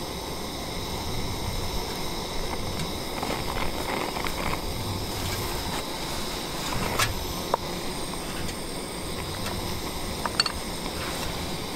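Onions and tomato frying with a steady sizzling hiss in a small iron frying pan on a camping gas stove, while a wooden spatula stirs and knocks against the pan a few times, the sharpest knocks about seven and a half and ten and a half seconds in.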